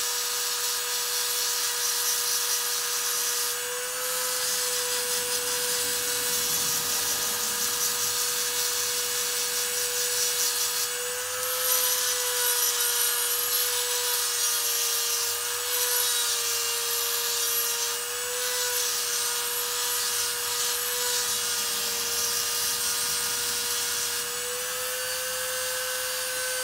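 Dremel rotary tool running steadily at high speed, grinding the cast iron of a cylinder head's intake port to gasket-match it. A constant high whine, dipping slightly in pitch now and then as the bit bites, over a gritty grinding hiss.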